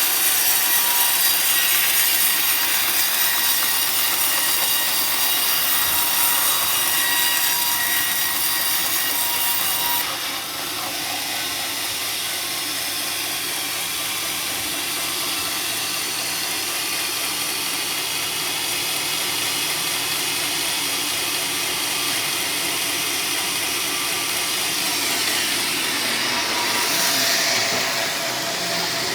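Sawmill saw cutting through a teak log: a loud, high-pitched cutting noise for about the first ten seconds that stops abruptly, leaving the saw running more quietly, with the cutting noise swelling again briefly near the end.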